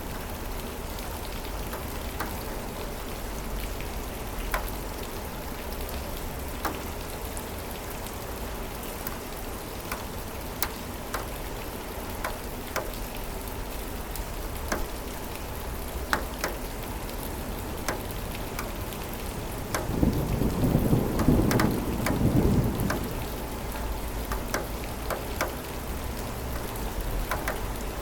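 Steady rain with scattered individual drops ticking. About two-thirds of the way through, a roll of thunder rumbles for around three seconds, the loudest part.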